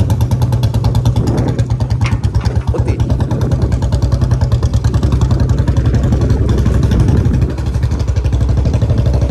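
Royal Enfield Bullet's single-cylinder four-stroke engine running with its thump, an even exhaust beat of about ten pulses a second. The beat briefly drops in loudness about three quarters of the way in.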